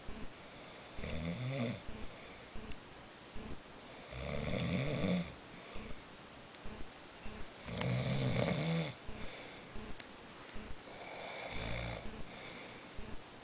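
Loud snoring in sleep: four rattling snores, each about a second long, roughly three and a half seconds apart, with quiet breathing in between.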